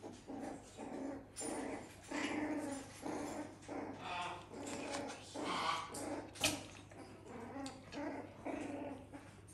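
Young poodle puppies whimpering and grunting in short calls, about two a second, while they nurse. A single sharp click about six and a half seconds in.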